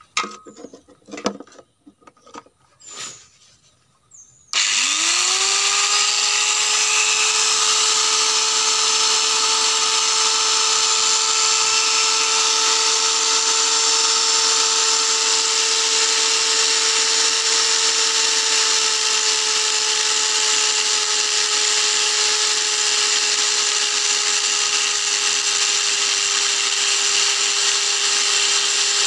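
Handheld angle grinder: a few knocks and clicks as it is handled, then switched on about four and a half seconds in, spinning up quickly to a steady high whine. Near the end it is cutting into a rusty steel plate from an old loudspeaker magnet.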